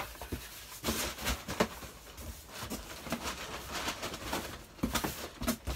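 Scrap cardboard being handled and pushed into the top of a packed cardboard box: irregular rustles, scrapes and light knocks.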